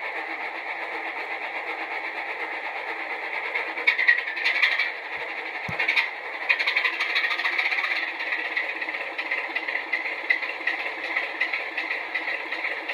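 Model-railway DCC sound decoder playing a Class 27 diesel locomotive's engine through a small onboard speaker. The engine runs steadily with a thin, rattly tone and no deep bass, and a clattery stretch sounds about four to six seconds in.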